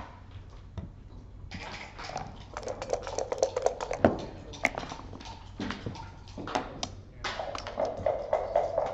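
Backgammon dice rattling in a dice cup and clattering out onto the board, with checkers clicking as they are moved. Two long spells of rapid rattling, about one and a half seconds in and again about seven seconds in.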